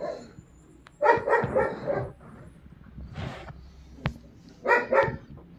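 Dog barking: a quick run of barks about a second in, then two more barks near the end, with a sharp click between them.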